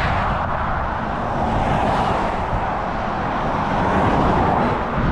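A vehicle on the move: a steady rushing noise of engine, tyres and wind with no clear engine note, swelling slightly near the end.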